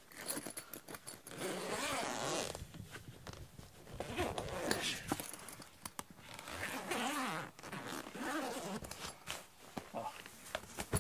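Zipper of a padded instrument gig bag being pulled open in several long drags, followed by a few small clicks and rustles near the end.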